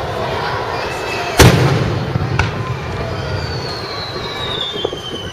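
Aerial fireworks shells bursting: one loud boom about a second and a half in that echoes away, a smaller pop a second later, and another loud boom at the very end. A long high whistle glides down in pitch through the second half over a steady low rumble.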